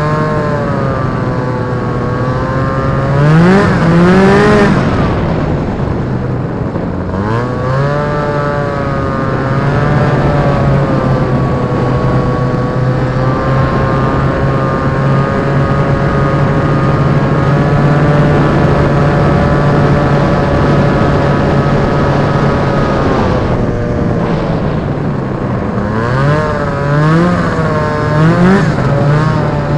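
Polaris Indy Trail snowmobile's Rotax 503 two-stroke twin running under way. It revs up and eases off twice in the first several seconds, then holds a steady cruise through the middle. Near the end come several quick rises and falls in pitch.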